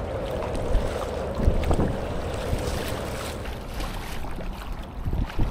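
Kayak being paddled through choppy water, with wind buffeting the microphone and a few knocks and splashes about a second and a half in and again near the end.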